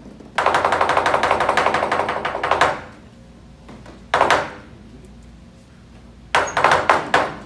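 Lion dance percussion of a big drum and cymbals: a fast roll of drum and cymbal strokes from about half a second in to nearly three seconds, a single crash that rings out about four seconds in, and a few more strokes near the end, with quiet pauses between.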